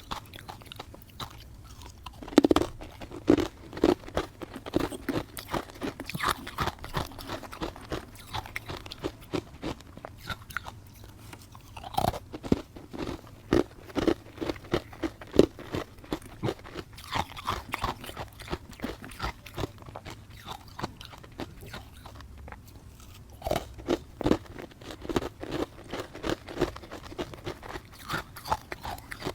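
A person bites into matcha-dusted powdery ice and chews it with loud crunching, close to the microphone. A new bite comes every five or six seconds, and each is followed by rhythmic crunchy chewing at about two chews a second.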